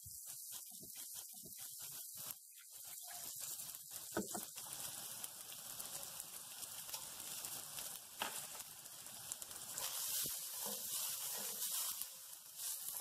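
Ginger slices, minced garlic and dried chilies sizzling in hot oil in an iron wok, a steady hiss. A spatula stirs and scrapes the wok near the end.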